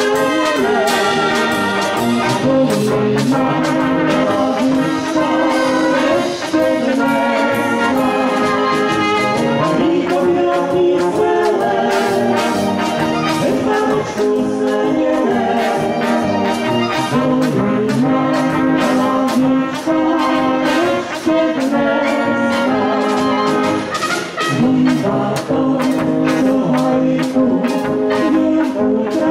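Brass band (Slovak dychovka) playing a tune, with tubas carrying the bass under trumpets or flugelhorns and a clarinet, and a drum kit keeping a steady beat.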